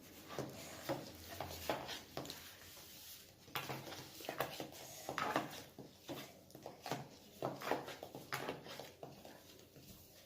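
Slime mixture of glue, shaving foam and food colouring being stirred in a bowl, in irregular short scraping strokes about one or two a second.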